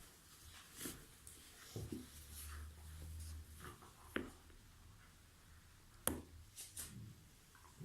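Joints cracking during a back or neck adjustment: a few short, sharp pops, the loudest about six seconds in, with rustling of skin and clothing between them.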